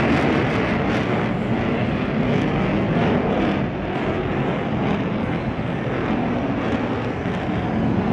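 Boeing F-15SG fighter's twin General Electric F110 turbofans heard in flight during a steep climb: a loud, steady jet noise that dips slightly a little past halfway.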